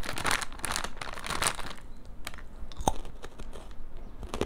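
Plastic snack bag crinkling as a hand reaches in, then the crunch and chewing of a crunchy chocolate-coated Jetz snack, with a few sharper crunches after about two seconds.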